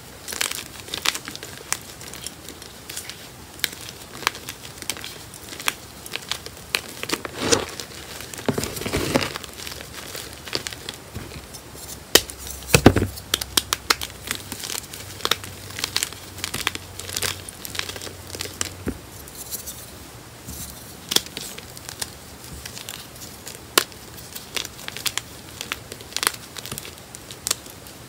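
Hands crumbling and crushing pieces of gym chalk (magnesium carbonate) among loose broken chalk: a continuous run of dry crackles and snaps, densest and loudest around the middle.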